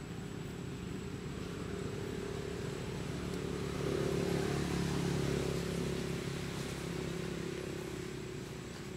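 A motor vehicle's engine running with a steady hum that grows louder about four seconds in and then fades, as if passing by.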